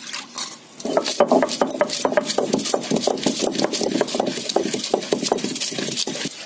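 Hand-turned stone grinder (aattukal) grinding a thick coconut chutney paste without water: stone scraping and clicking against stone in a quick, uneven run of strokes that gets louder about a second in.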